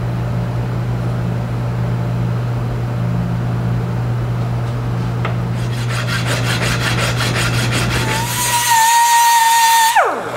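Hand file rasping in strokes across the end of a steel bolt clamped in a vise, cutting a slot into it, over a steady low hum. Near the end a loud high whine starts, holds steady, then drops sharply in pitch as it cuts off.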